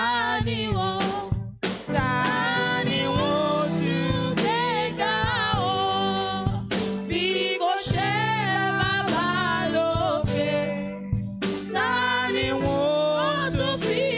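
Gospel worship song: a sung voice in phrases with short breaks between them, over steady instrumental accompaniment.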